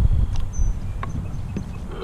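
Low steady rumble of wind on the microphone, with a few light knocks as the rod and line are handled over the plastic fishing kayak.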